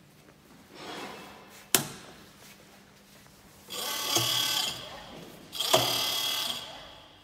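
TelTek LS 100 line dispenser working: a sharp click about two seconds in, then two bursts of motor whirring with hiss and a steady high whine, each about a second long, in the second half.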